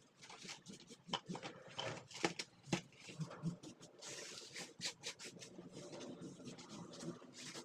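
Irregular light clicks and taps with rubbing, and a stretch of brushing or wiping noise about four seconds in: small objects being handled and rubbed.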